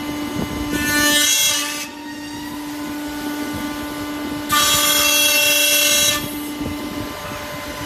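Tenoning machine's router spindle running with a steady high whine, its cutter biting into the wooden workpiece in two loud bursts of cutting noise, about a second in and again past the middle, each lasting one to two seconds.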